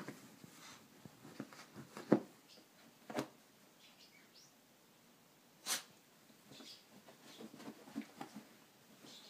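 A Maltese tussling with a plush donut dog bed on carpet: scattered thumps, scuffs and fabric rustles, with the sharpest knock about two seconds in and others around three and six seconds.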